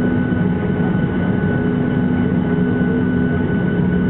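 Steady drone of a jet airliner's engines and cabin air heard inside the cabin while the aircraft is on the ground, a constant rumble with a few held hum tones and no changes.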